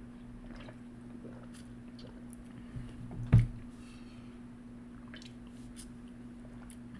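Close-miked chewing of food, wet squishing mouth sounds with small clicks, over a steady low hum. About three and a half seconds in there is one loud low thump.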